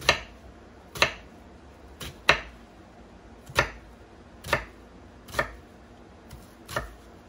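Chef's knife dicing an onion on a wooden cutting board: about eight sharp chops, roughly one a second and slightly uneven.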